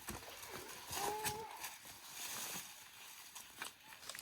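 Footsteps scuffing and crunching through dry leaves and loose rock on a slope, in scattered short clicks. A brief pitched call, slightly rising, about a second in.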